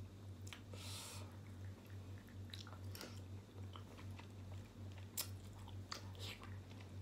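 A person pulling apart, biting and chewing a chicken foot with the fingers: small wet clicks and bites, with a brief hiss about a second in and one sharper click about five seconds in. A steady low hum runs underneath.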